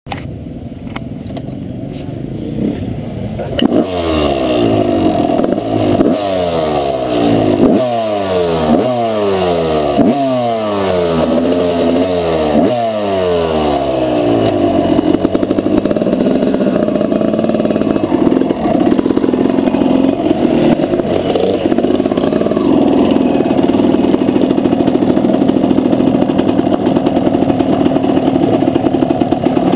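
Honda CR250 two-stroke single-cylinder motocross engine revved in a string of about seven quick blips, each rising sharply and falling back, then running steadily at low revs.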